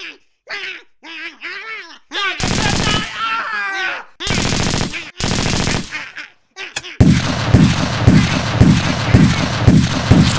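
Sound effects of a sci-fi gun firing: a few long blasts, then a rapid volley of shots, about two or three a second, from about seven seconds in. Short voice sounds come before the shooting.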